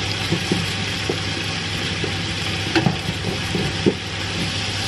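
Chop suey vegetables and mushrooms sizzling in oil in an electric skillet as a spatula stirs and turns them. The spatula knocks against the pan a few times, most plainly about three and four seconds in.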